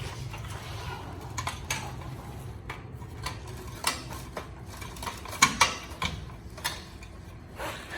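Scattered metallic clinks and clicks as motorcycle exhaust parts and tools are handled, over a low steady hum, with two sharper knocks close together a little past halfway.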